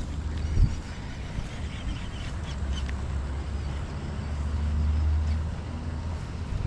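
Wind buffeting the microphone as a steady low rumble that swells a few seconds in, with a few faint short high sounds about two to three seconds in.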